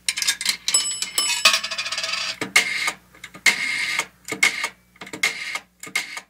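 Outro sound effects: a rapid run of sharp clicks and clatter with bell-like dings in the first couple of seconds, over a faint steady hum.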